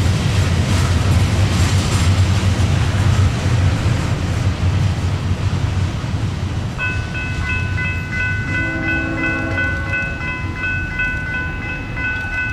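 Florida East Coast Railway freight train passing: the diesel rumble of its rear locomotive and the rolling cars, fading slowly as it pulls away. From about seven seconds in, a bell rings steadily, and near nine seconds a short, distant train horn blast sounds.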